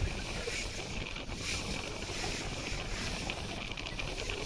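Steady wind and water noise aboard a motorboat, with wind rumbling on the microphone.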